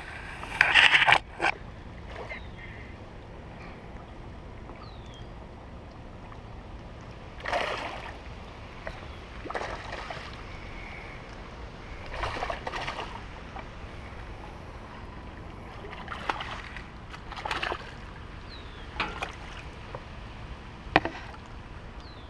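Water sloshing and splashing in short irregular bursts, mixed with knocks and rubbing from handling a rod and reel, over a steady low outdoor background.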